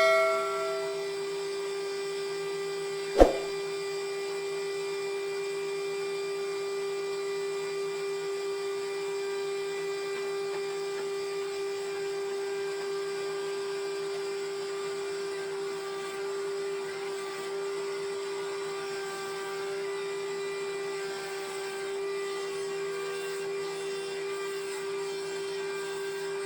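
Wood-Mizer band sawmill running with a steady whine, with one sharp knock about three seconds in.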